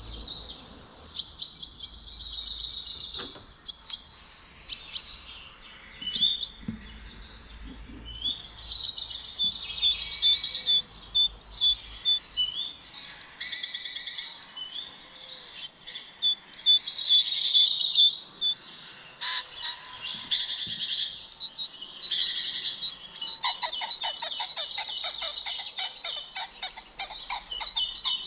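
Several songbirds singing and chirping continuously, their high calls overlapping. Near the end a fast, evenly repeated trill joins in.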